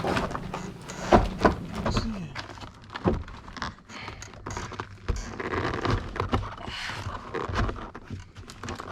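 Plastic interior door trim panel of a 2005 Buick Park Avenue being hooked and pressed onto the door: a run of knocks, taps and thumps, the loudest about a second in.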